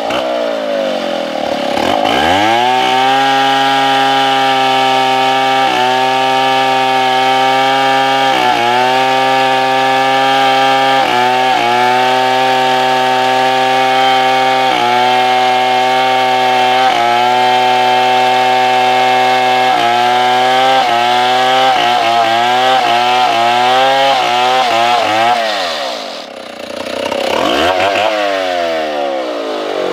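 Stihl 070 two-stroke chainsaw revving up about two seconds in and sawing into a large tree trunk at steady high revs, its pitch dipping briefly every few seconds. Near the end it drops to idle, then revs up and down again.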